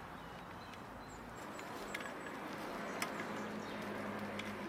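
Quiet outdoor background with faint bird chirps and a few soft clicks.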